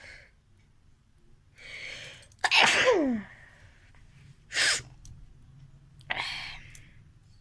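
A person sneezing: a breathy in-breath, then one loud sneeze with a falling voiced 'achoo' about two and a half seconds in. Two shorter, sharp breathy bursts follow, about two and three and a half seconds later.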